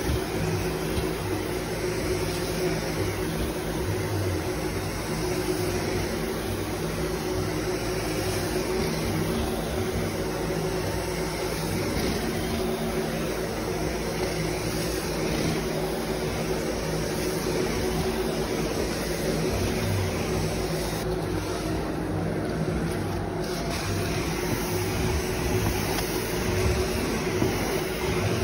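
Hot-water carpet extraction: the cleaning wand spraying and sucking water back out of the carpet, with the extractor's vacuum running as a steady rushing drone and a steady hum under it.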